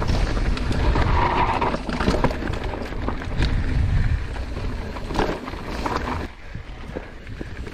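Mountain bike riding over rocky dirt trail: wind rumbling on the microphone, with tyres crunching and the bike rattling over rocks and bumps. It gets quieter a little after six seconds in.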